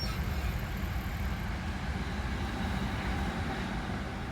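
Steady low road and drivetrain rumble inside the cabin of a moving 30-series Toyota Prius. A thin, faint high tone comes in about two seconds in.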